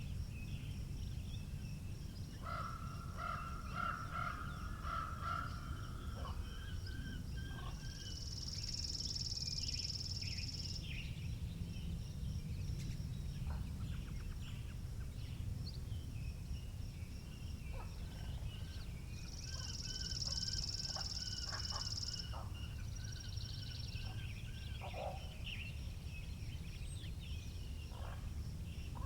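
Wind rumbling on the microphone with birds calling and chirping throughout. Two high, even trills of about three seconds each come near the start of the second third and again past the middle.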